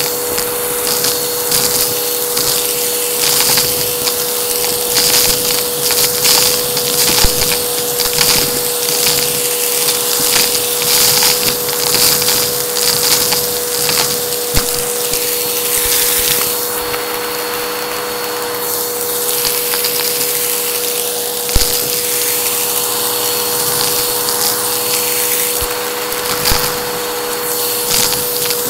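Vacuum cleaner running with a steady motor whine while sucking up a thick, clunky debris mix that rattles through it in many small clicks and crackles. The hiss of the airflow swells twice in the second half.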